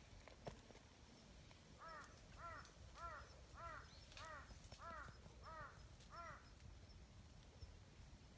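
A crow cawing eight times in a steady run, about two caws a second, faint.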